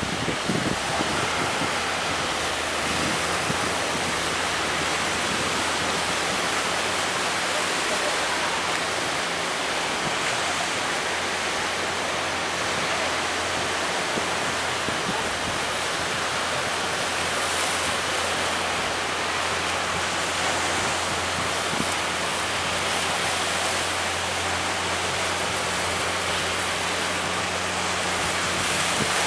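Steady rushing noise of breaking surf, with a faint steady low drone from the inboard engines of wooden fishing boats pushing through the waves.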